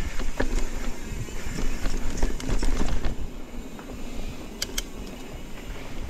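Mountain bike riding on a dirt singletrack trail: tyre and bike noise with a steady low rumble and scattered knocks and clicks, louder in the first half. Two sharp clicks come close together about four and a half seconds in.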